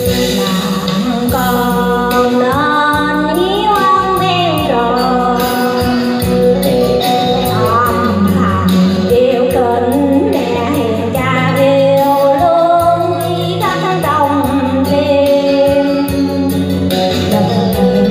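A woman singing a song into a handheld microphone, amplified, over backing music with a steady beat.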